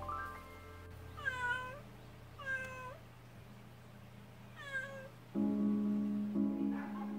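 A cat meowing three times, each call rising and falling in pitch: an uneasy cat. Soft background music plays underneath and grows louder near the end.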